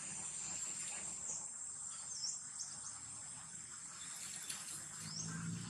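Insects trilling steadily at a high pitch, with a few short chirps over it.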